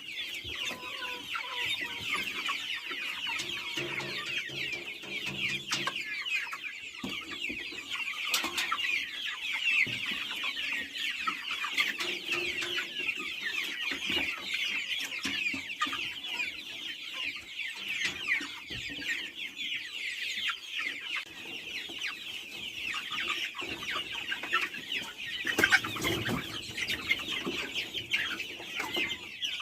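A flock of chickens calling all at once: a dense, continuous chatter of many short high-pitched calls, with a few clucks and knocks mixed in.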